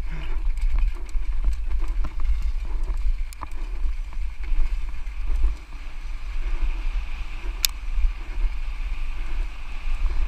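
Wind buffeting the microphone over tyre and trail noise from a mountain bike riding a downhill trail at speed, with a few sharp clicks. The loudest click comes about three-quarters of the way in.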